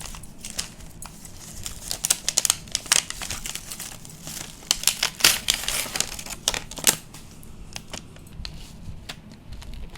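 Packaging being handled and crinkled, a run of sharp crackles and rustles, busiest in the middle and quieter near the end.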